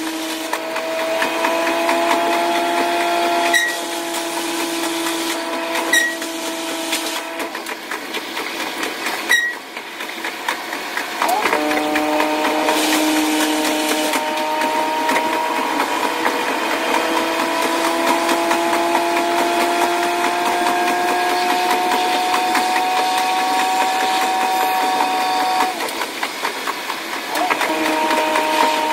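KiHa 185 series diesel railcar running, its engine and running sound sped up six times into a high, steady hum whose pitch drifts slowly and shifts a few times as the throttle changes. A few sharp ticks come in the first ten seconds.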